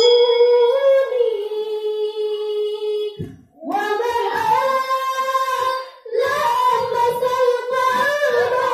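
Girls singing sholawat through a microphone: one long held note for about three seconds, then after a short break the singing comes back fuller, pausing again briefly about six seconds in.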